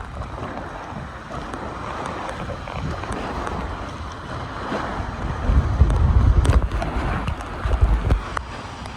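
Steady rush of water-slide water with wind buffeting the microphone, the low buffeting heaviest from about five and a half to eight and a half seconds in.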